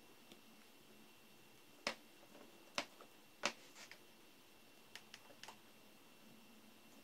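Small sharp clicks of a NiCd battery cell pack and its nickel tabs being handled with a metal tool: three louder clicks about a second apart, then a few faint ticks, over a faint steady high tone.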